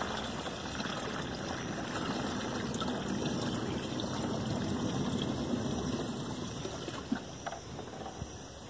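Water poured from a plastic bucket into the narrow neck of a large plastic jug, a steady splashing trickle as the jug fills, easing off about seven seconds in.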